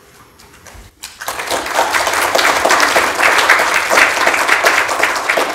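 Audience applause: many people clapping, starting about a second in and building quickly to a steady, dense patter.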